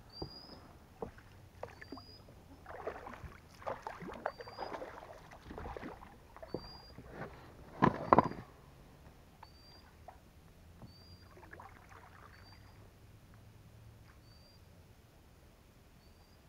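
Oars working an inflatable rowing boat: irregular swishes of the blades in the water and knocks against the boat, the loudest a double knock about eight seconds in, then quieter.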